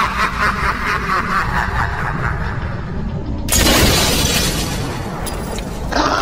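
Animated Halloween ghost sound effects: a rapid rhythmic rattle, then about three and a half seconds in a sudden loud crashing burst as the ghost figure blows apart into smoke, fading over the next two seconds.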